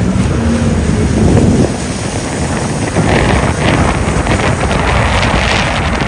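Jet ski engines running on open water, with wind buffeting the microphone and water spraying. A steady engine tone fades out about a second and a half in, leaving a loud rush of wind and spray with hissing gusts.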